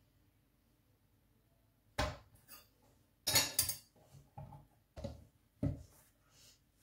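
Hands handling pizza dough: a lump of dough set down and pressed on a glass kitchen scale, then lifted and worked on a wooden board. After about two seconds of quiet come a series of soft knocks and thuds with rubbing between them, loudest around the middle, with two more heavy thuds near the end.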